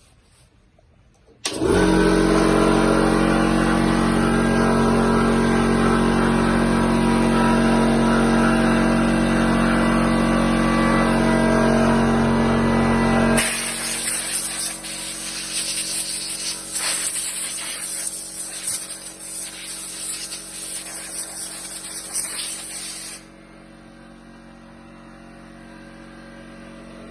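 Black & Decker BD 205/50 air compressor with a 2 HP electric motor starting suddenly about a second and a half in and running with a steady, loud hum. About halfway through it drops to a quieter, hissing, uneven sound, which sinks lower again near the end.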